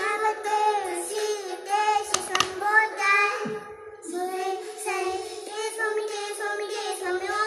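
A young girl singing a melody in a high voice, gliding from note to note, with a couple of brief sharp knocks a little over two seconds in.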